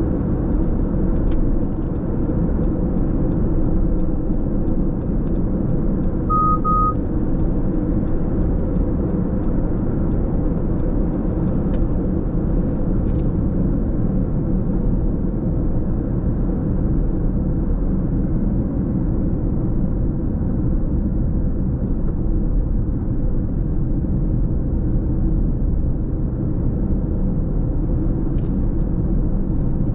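Steady low road and tyre rumble of a car cruising at freeway speed, heard from inside the cabin.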